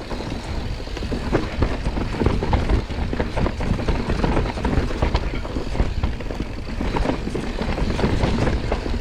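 Mountain bike rolling fast down a dusty dirt trail: a steady deep rumble of tyres on loose ground, with many short rattles and clicks from the bike.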